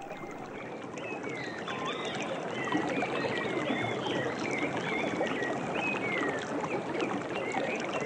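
A river flowing steadily, with forest birds chirping and whistling over the sound of the water.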